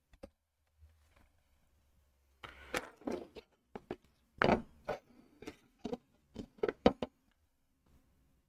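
Loose plastic Lego pieces clattering in a plastic sorting tray as they are handled: a quick, irregular run of sharp clicks and knocks starting about two and a half seconds in and lasting about five seconds.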